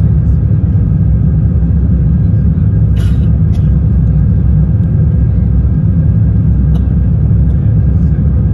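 Steady low rumble inside the cabin of an Airbus A350-1000 airliner, with a sharp click about three seconds in and a few fainter ones later.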